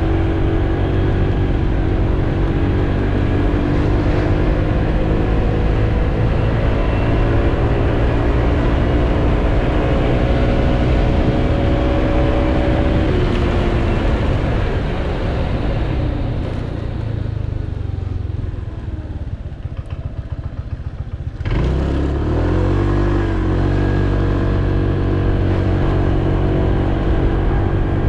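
Honda PCX 125 scooter's single-cylinder four-stroke engine and belt drive heard from the saddle on the move, with wind and road noise. The engine note climbs steadily for the first dozen seconds as the scooter accelerates, then falls away and quietens as the throttle is rolled off. About 21 seconds in it picks up suddenly and rises again under throttle.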